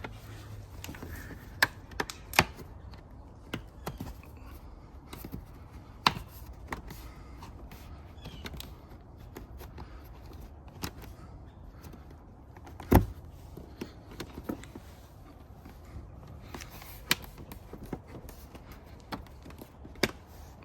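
Seat back panel and trim pieces of a Porsche 992 911 seat being handled and clipped back into place: scattered clicks and knocks at irregular intervals, the loudest knock about 13 seconds in.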